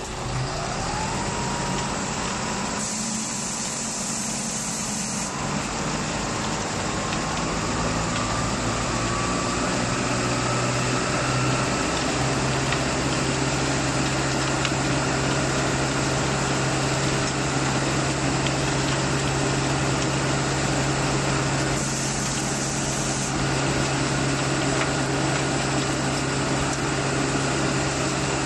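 Self-loading concrete mixer truck's engine running, its pitch climbing over the first dozen seconds and then holding steady, with a short high hiss twice.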